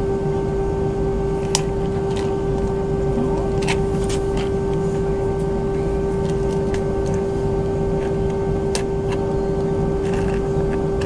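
Steady cabin drone of an Airbus A320-232's IAE V2500 engines at idle, heard from inside the cabin by the wing: an even hum carrying one strong constant tone, with a few faint clicks scattered through it.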